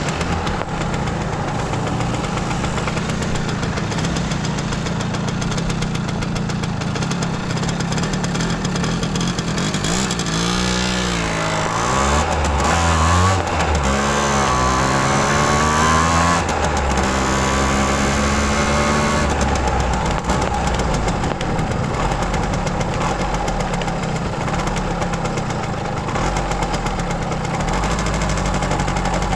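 Simson S51's 50 cc two-stroke single-cylinder engine running, its revs dipping and climbing again several times around the middle.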